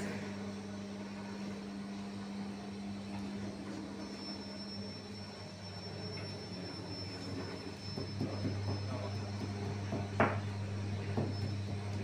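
Steady low hum of bakery machinery, with a few short, sharp knocks and taps in the last few seconds.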